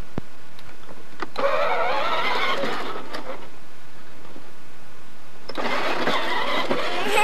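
Battery-powered ride-on toy truck's electric motor and gearbox whirring, in two spells: from about a second in, and again from about five and a half seconds on, its pitch wavering up and down as it drives.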